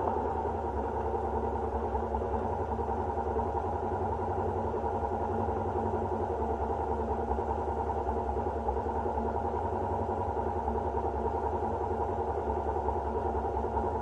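Side-by-side UTV's engine idling steadily while the vehicle sits stopped, heard from the cab.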